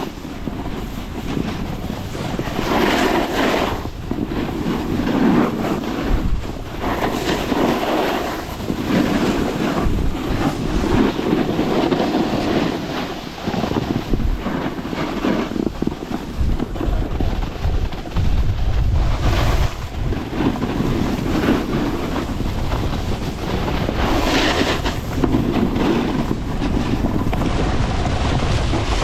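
Wind rushing over the microphone during a snowboard descent, with the hiss and scrape of snowboard edges on snow swelling and easing every couple of seconds as the rider turns.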